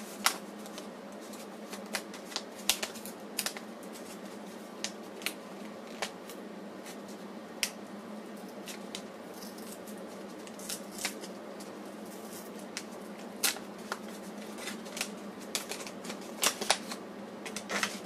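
Small paper parts envelopes handled and opened by hand: irregular paper crinkling and rustling with scattered sharp clicks.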